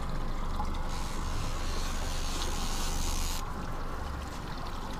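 Steady running noise of a fishing boat at sea: a low engine and wind rumble with water hiss, the hiss louder for a couple of seconds in the middle.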